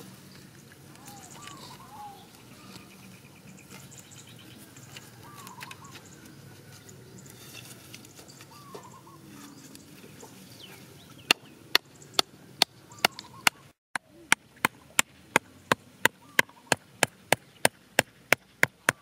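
A machete striking a small wooden stake in a quick, even run of sharp knocks, about three a second, starting about eleven seconds in and broken once by a short gap. Before that, faint bird chirps over rustling grass.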